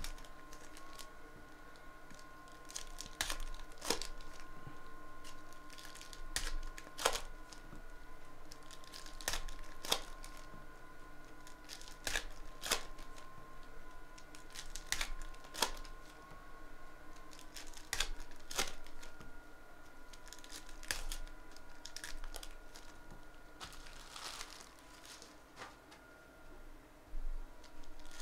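Foil trading-card pack wrappers being torn open and crinkled by hand: irregular sharp crackles and rustles, a few seconds apart.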